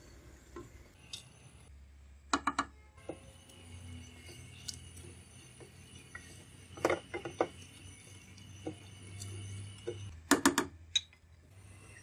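A spatula stirring soaked urad dal into oily masala in an aluminium pot, with three short runs of quick clinking knocks of the spatula against the pot, about two, seven and ten seconds in.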